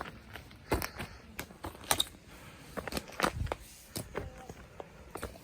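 Hiker's footsteps on a snowy mountain trail, irregular steps about one to two a second.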